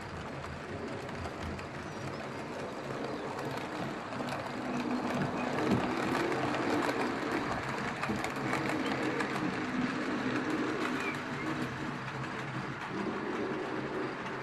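HO-scale narrow-gauge BEMO model train running on its track: a steady rattle of small wheels on the rails over a faint motor hum, growing louder about four to six seconds in.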